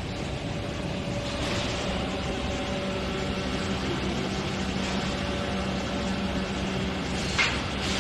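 Hydraulic press for moulding automotive carpet running: a steady hum with a low tone through it. One sharp clack comes near the end.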